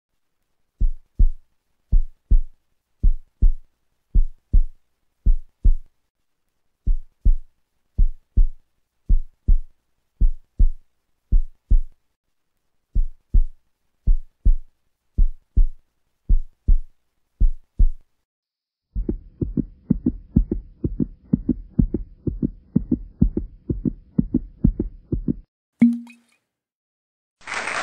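Heartbeat sound effect: paired low thumps, lub-dub, about once a second, with dead silence between. After about nineteen seconds it quickens into a faster run of beats over a faint hiss, then cuts off. A short tone sounds, and applause begins right at the end.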